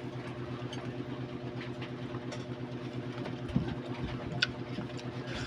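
A small engine idling steadily nearby with a fast, even pulse, with a few light clicks and a soft thump over it.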